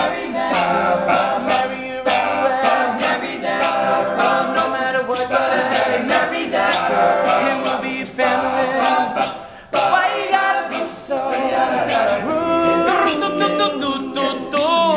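Male a cappella group singing wordless backing harmonies with a vocal percussion beat. The sound dips briefly about ten seconds in, then comes back.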